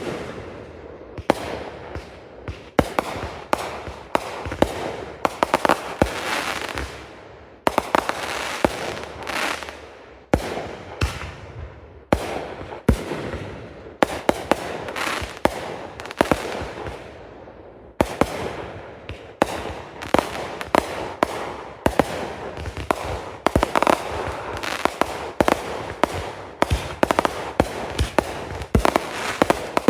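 Consumer fireworks display going off: dozens of sharp bangs at uneven intervals, some in quick runs, with noisy tails that fade away between the bursts.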